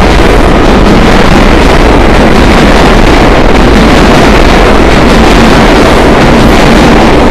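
R142 subway cars running past the platform as the train pulls out of the station: a loud, steady rush of steel wheels on rail that nearly overloads the microphone.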